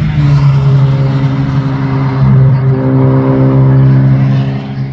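Race car engine running hard on track, a loud, fairly steady note that swells about two seconds in and fades near the end as the car passes.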